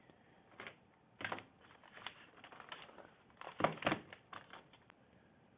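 Irregular small, sharp clicks and taps of hand tools against a phone's circuit board and the work surface, about eight in all, the loudest a quick double click a little past the middle.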